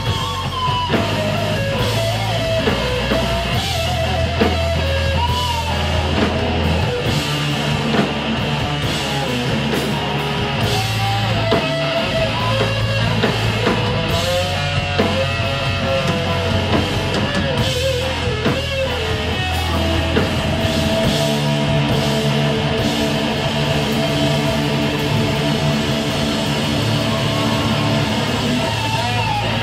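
Live rock band, electric guitar and drum kit, playing loud without vocals. The guitar plays a lead line with bent notes over low held notes and steady drumming with cymbals.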